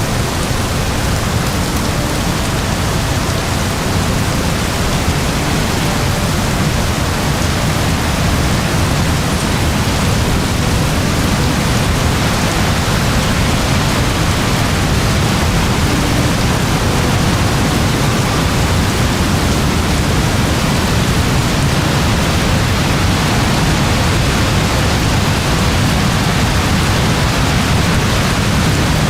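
Very heavy rain pouring down in a dense, steady hiss, with no separate drops standing out.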